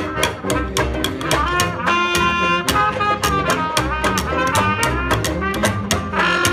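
Small traditional jazz band playing an instrumental passage: trumpets and saxophone carry the melody over upright bass and guitars strummed in a steady beat.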